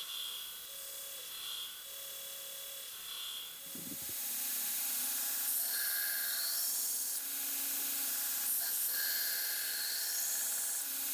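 Belt grinder running with an S35VN stainless-steel knife blade held against the abrasive belt: a steady grinding hiss that swells about every second and a half as the blade is worked. About four seconds in the sound gets louder and a steady motor hum comes in under it.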